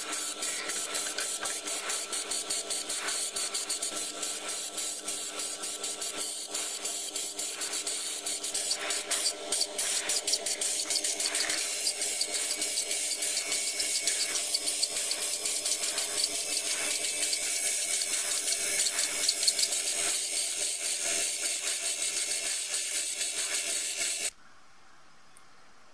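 Paint being sprayed onto small model-car parts: a steady spray hiss with a fast pulsing in it and a low steady hum underneath. It cuts off suddenly about a second and a half before the end.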